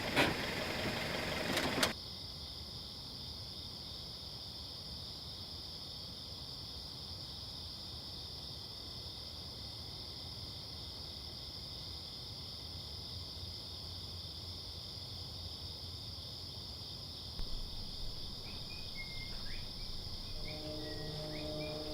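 An idling engine with a couple of sharp clicks cuts off suddenly about two seconds in. What remains is a steady high chorus of insects such as crickets. Near the end a few short bird-like chirps come in, then low sustained musical tones.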